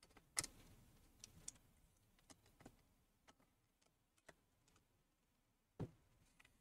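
Faint, scattered clicks and taps of small laptop parts being handled and fitted into a keyboard deck, with a sharper knock about half a second in and another near the end.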